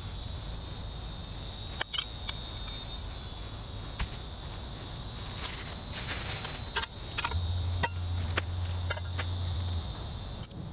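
Steady high-pitched trilling of insects, with a few sharp small metal clicks as a folding canister stove is screwed onto its gas canister and its pot supports are unfolded.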